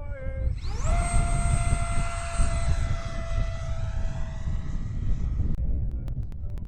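Arrows F-86 Sabre 64 mm electric ducted fan whining up and holding a steady high-pitched whine, then cutting off suddenly, followed by a few clicks. Strong wind rumbles on the microphone throughout.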